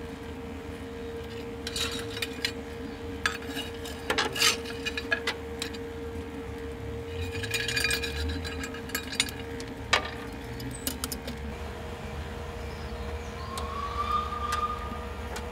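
Electric chimney blower fan on a miniature steam locomotive running with a steady hum, drawing air for lighting up. Steel tongs clink and wooden firelighting sticks knock as they are dropped into the firebox.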